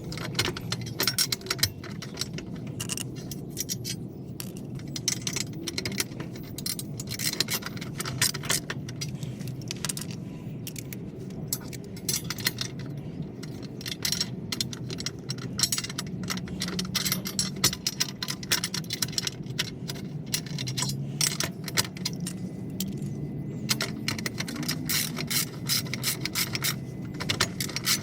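Hand socket ratchet clicking in rapid, irregular runs of short strokes, run on the nuts that hold the differential skid plate.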